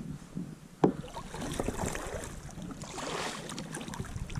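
Kayak being paddled: the paddle blade working through the water with an uneven wash of splashing, and one sharp knock about a second in.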